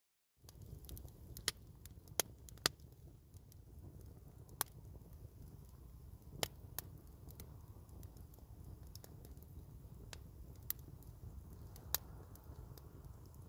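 Wood campfire crackling: irregular sharp pops over a low, steady rumble.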